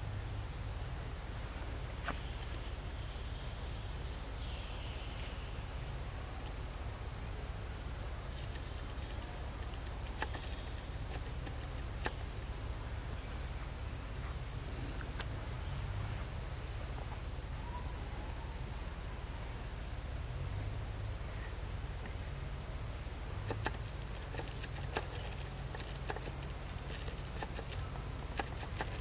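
A chorus of insects: a steady shrill drone, with a higher chirp repeating about once or twice a second, over a low rumble and scattered faint clicks.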